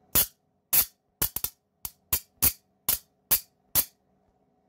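High-voltage arcing at the end of a K40 CO2 laser engraver's tube: about a dozen sharp electrical cracks at irregular intervals, roughly two to three a second, over a faint mains hum. The arcing is a fault that makes the machine unsafe to use.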